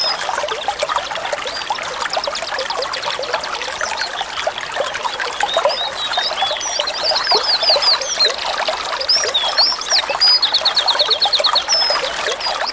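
A small songbird singing fast, even trills and sharp up-and-down chirps over steadily trickling, bubbling water. One trill comes about two seconds in, a run of chirps in the middle, and another trill near the end.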